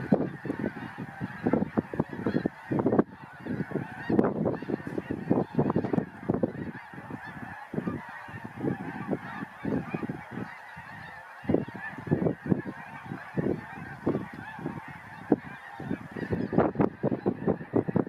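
A large flock of geese in flight, many birds honking at once in a dense, continuous chorus of overlapping calls.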